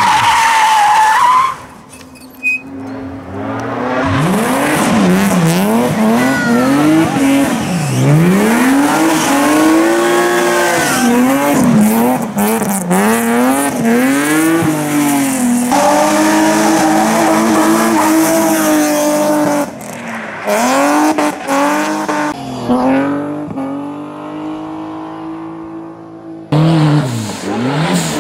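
Rally cars' engines revving hard through hairpin bends, the pitch climbing and dropping again and again with throttle and gear changes, one car after another with abrupt cuts between them. Tyres squeal as the cars slide sideways.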